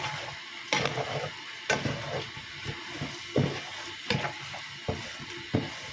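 Eggs and onions sizzling in a frying pan, a steady hiss, with sharp knocks of a utensil against the pan about every three-quarters of a second as they are stirred.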